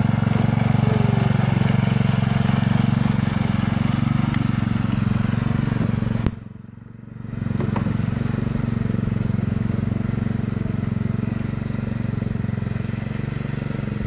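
Riding lawn mower's engine running steadily as it drives off across the yard, fading a little as it moves away. The sound drops out suddenly for about a second halfway through, then returns.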